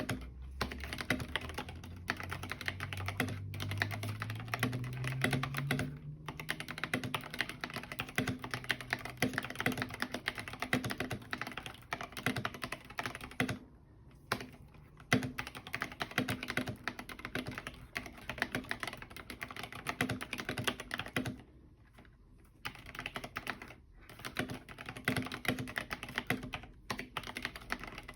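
Typing on an Epomaker TH80 mechanical keyboard with linear Flamingo switches and MDA-profile keycaps: a fast, continuous run of keystrokes, with brief pauses about halfway through and again near 22 seconds in.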